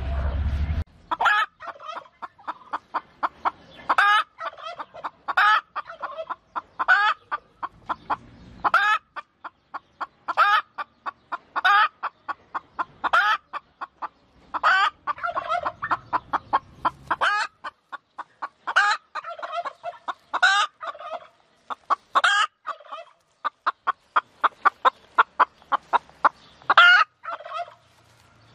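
Hen clucking: rapid runs of short clucks, with a louder call about every second and a half.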